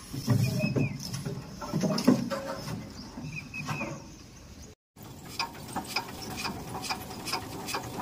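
Concrete mixer's loading skip coming down on its winch cable: metal squeaks and clanks over a low rumble from the machine. After a brief break comes a run of sharp, regular clicks, about three a second.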